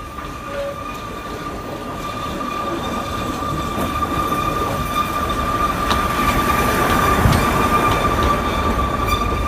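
A small diesel-hauled narrow-gauge train of the Oigawa Railway rolls in on a curve with a steady high-pitched squeal over a low running rumble. The sound grows louder as the locomotive and cars pass close by.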